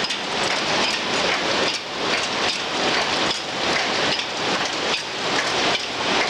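Rotary-cage PP woven-bag cutting machine running, a steady noisy clatter with a quick train of regular clicks.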